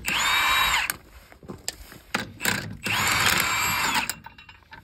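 Handheld power tool spinning wheel lug nuts, in two bursts with a whining motor pitch: a short one at the start and a longer one of about a second near the middle, with a few clicks of handling between.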